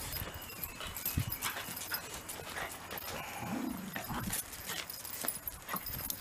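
Shiba Inu jumping up and pawing at a person: quick scattered claw taps and scuffles on concrete and against trouser fabric, with one short low vocal sound about halfway through.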